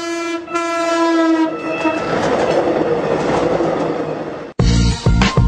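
A horn sounds in two long held blasts, then a steady rushing rumble runs for a few seconds. Music with a heavy beat cuts in suddenly near the end.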